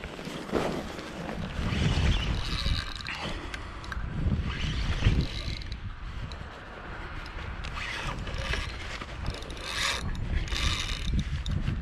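Spinning reel being wound against a hooked wels catfish, its gears whirring in uneven bursts, with rumbling from rod handling.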